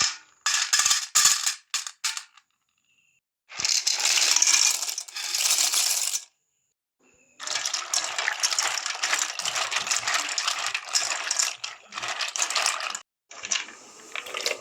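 Kitchen cooking noises: clinking and rattling in several short bursts, each cut off abruptly by a silent gap.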